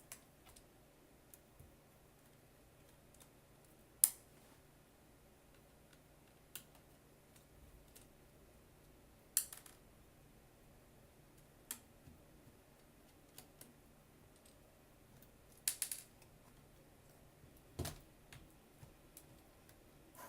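Scattered small clicks and taps of a screwdriver and screws as the screws along the side of a laptop screen are taken out, a dozen or so spread out with pauses between them.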